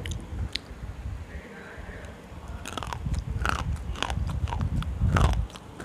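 Slate pencils bitten and chewed right at a clip-on microphone. Quiet chewing gives way, a little under halfway in, to about five sharp, brittle crunches as pieces snap between the teeth.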